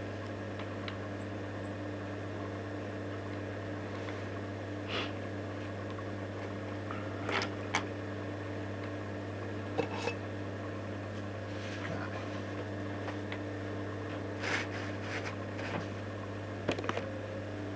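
Steady low electrical hum, with a few brief soft scrapes and taps of a paintbrush working oil paint on a wooden palette and panel.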